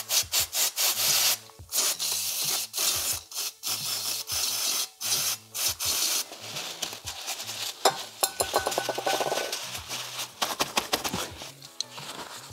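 Paper shop towel rubbing and scrubbing over a small plastic wiring plug in quick, repeated strokes, with hiss from an aerosol can of brake cleaner, as the plug is cleaned.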